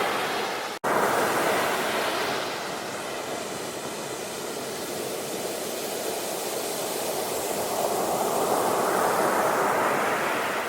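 Ocean waves breaking and washing in: a continuous rushing surf that surges, eases off, and swells again near the end. The sound cuts out completely for an instant less than a second in.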